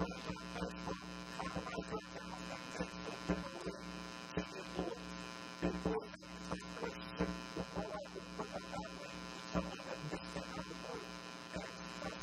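Steady electrical mains hum and buzz with many evenly spaced overtones, with a voice talking indistinctly under it.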